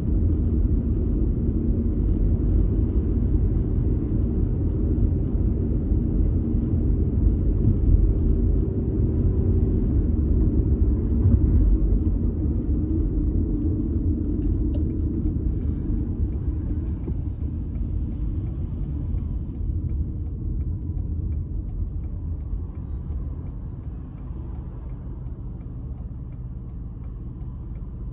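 Steady low rumble of a car driving, fading gradually over the second half.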